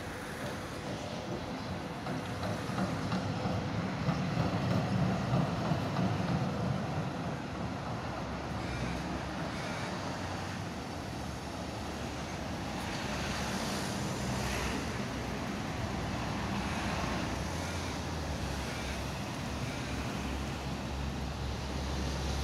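Street traffic: an A1-class tram passes over the first several seconds, louder about four to six seconds in, with a faint steady whine that fades as it goes. After it, cars and a van pass, and a low rumble builds near the end.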